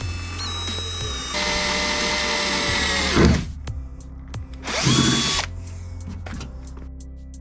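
Power drill boring a 4 mm pilot hole through the steel rear door of a Mercedes Sprinter van: the motor spins up, runs for about three seconds and winds down with falling pitch, then gives a second short burst about five seconds in.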